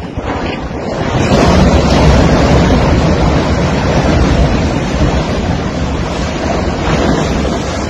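A steel ship-to-shore container crane collapsing: a loud rushing rumble that swells about a second in and slowly dies away, mixed with wind buffeting the phone's microphone.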